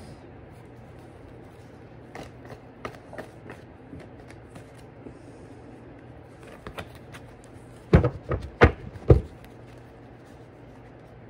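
Tarot cards being handled, with faint soft clicks, then three loud knocks in quick succession about eight to nine seconds in.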